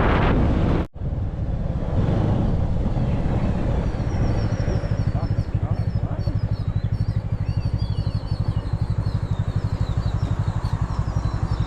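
Wind rushing over the microphone for the first second. Then a motorbike engine running at low revs with an even, steady pulse, with birds chirping over it from about four seconds in.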